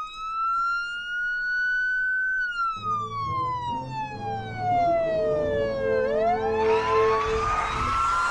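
Police siren sound effect wailing: a single tone rises, falls slowly, then rises again. A lower rumble joins about three seconds in, with a hiss building near the end.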